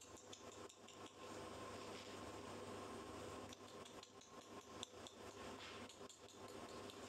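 Near silence: a steady faint hiss and hum, with a few scattered faint clicks.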